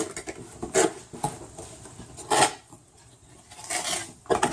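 Cardboard box and paper packaging being handled: a few short bursts of sliding and rustling, the loudest about halfway through.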